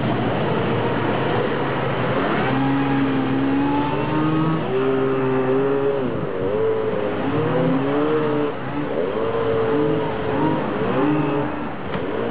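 Vintage late-1970s Dynafoil personal hydrofoil's engine revving as the craft pulls away across the water, its pitch rising and falling several times from about two seconds in, over a steady rushing noise.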